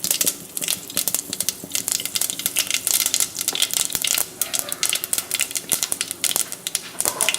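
Mustard seeds popping and spluttering in hot oil: rapid, irregular sharp crackles over a sizzle.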